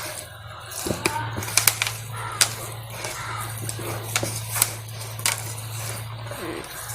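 Hands rubbing a spice-and-yogurt marinade into a whole raw chicken: scattered sharp wet clicks and smacks over a steady low hum.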